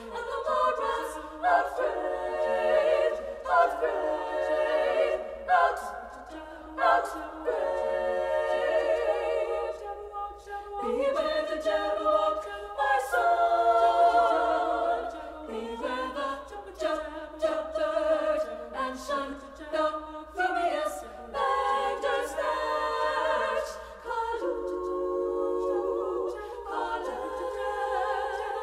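High-school women's choir singing a cappella in several parts, with sustained chords that shift in pitch and crisp sung consonants, no instruments.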